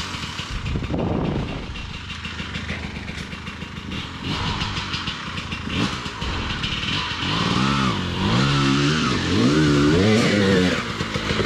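Dirt bike engine revving up and down in repeated surges as the rider works throttle and clutch through a hard rocky section. The revs are lower and rougher at first, then rise and fall in quick sweeps, loudest in the second half.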